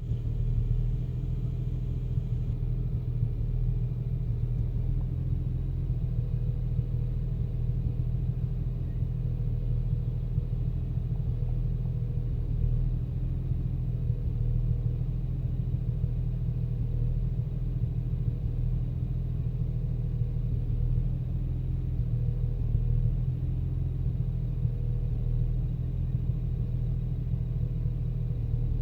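BMW 335i turbocharged inline-six idling roughly, a steady low rumble. It is the rough idle and shaking that began after aftermarket downpipes were fitted, with no error codes to explain it.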